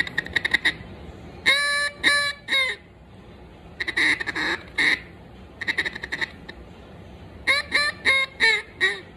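Duck call with a Bois d'Arc wooden insert blown in short groups of quacks: a few clipped notes, then three longer quacks, two quick clusters, and near the end a run of five quacks stepping down in pitch. These are test calls while the insert is being tuned.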